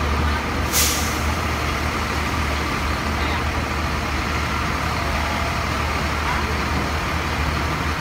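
Diesel engines of parked fire trucks idling with a steady low drone. A short burst of air hiss about a second in, like an air-brake release.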